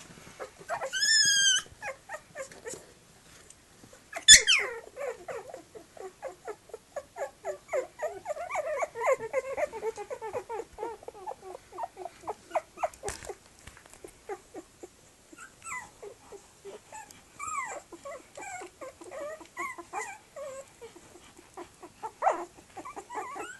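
Three-week-old Tibetan terrier puppies squealing, whimpering and growling as they wrestle. There is a high yelp about a second in and a sharp squeal a few seconds later, then a long run of quick, short play-growls and squeaks.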